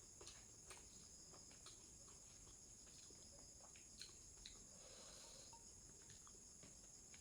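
Near silence with faint eating noises: a few small mouth clicks and soft chewing sounds over a steady high hiss.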